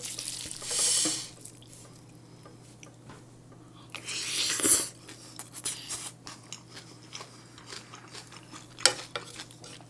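A person eating close to the microphone: two loud wet mouthfuls, about a second in and again about four seconds in, then chewing with small clicks of the utensil against the bowl.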